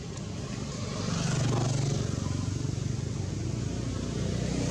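A motor vehicle engine running steadily, growing louder about a second in.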